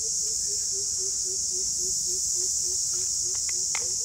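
Steady high-pitched insect chorus. A faint low note repeats about four times a second underneath, and near the end a few light clinks come from a spoon on a glass sugar jar.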